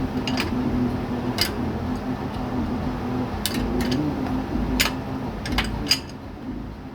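Hand tools clinking on metal under the hood, about seven sharp scattered clicks, over a steady low hum that fades near the end.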